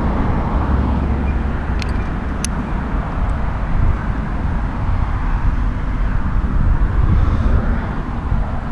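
Steady low rumble of road traffic, with two brief sharp clicks about two seconds in.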